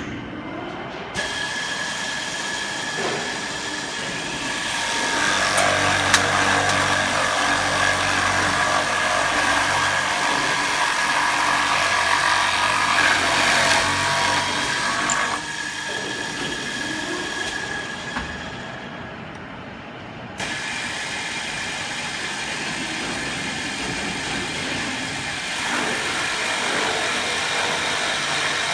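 Electric door-lock hole drilling machine running with a steady high whine; it starts about a second in, runs louder for about ten seconds, eases off, dips briefly, then runs steadily again.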